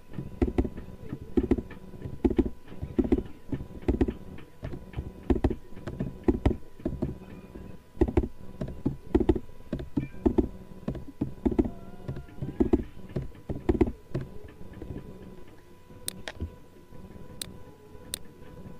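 Computer keyboard typing in irregular taps, with a few sharp mouse clicks near the end, over a faint steady electrical hum.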